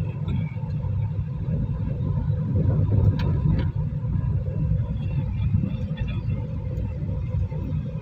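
Steady low rumble of a car on the move, heard from inside the cabin: engine and road noise, with a few faint ticks about three seconds in.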